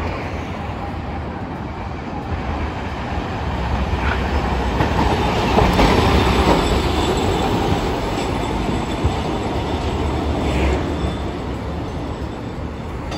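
A Hiroden 1900-series streetcar (ex-Kyoto city tram) rolling past on street track, its wheels and running gear rumbling over the rails. It is loudest about six seconds in as it goes by, then eases off as it slows into the stop.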